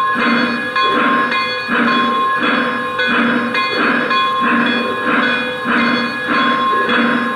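Lionel Pennsylvania CC2 0-8-8-0 O-gauge model steam locomotive's onboard sound system playing steady steam chuffing, about three chuffs every two seconds, with a steady tone underneath.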